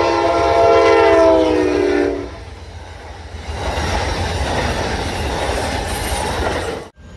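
Amtrak GE P42DC locomotive's multi-note air horn sounding loudly as it passes, its pitch dropping slightly before it stops about two seconds in. Then the passenger cars rush by with steady wheel-on-rail noise, which cuts off abruptly near the end.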